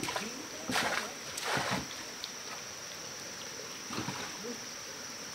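Water splashing in two short bursts, about a second in and again just after, with a smaller splash later on.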